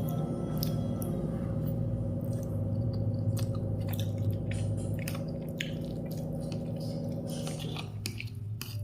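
A person chewing Maggi noodles and poached egg, with many short wet clicks of the mouth. A steady low hum sits underneath and stops shortly before the end.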